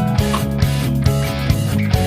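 Background rock music with guitar and a steady, regular drum beat.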